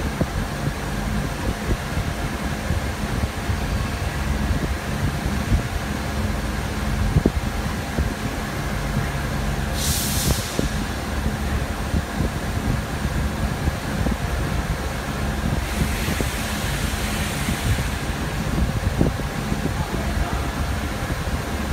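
Chencan 1325 CNC router standing by or jogging under handheld-controller setup, giving a steady machine hum with a few steady whining tones. A short hiss comes about ten seconds in and a longer one around sixteen seconds.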